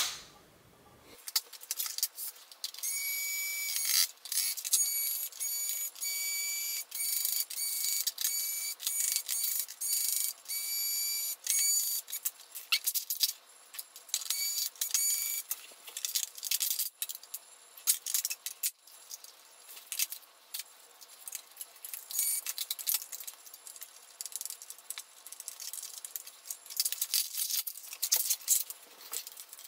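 Cordless electric screwdriver backing out laptop screws, sped up: a string of short, high whining bursts in the first half, then quick clicks and rattles of screws and plastic covers coming off the laptop's underside.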